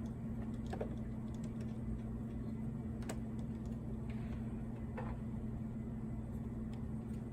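A few sharp small clicks and taps from a screwdriver working at a laptop's bottom-case screws, over a steady low hum.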